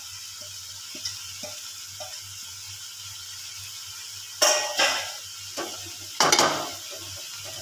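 Steel spoon stirring chopped coriander into jackfruit curry in an aluminium pressure cooker, over a faint steady sizzle. A few light taps come first, then two loud bouts of scraping and clattering against the pot, about four and a half and six seconds in.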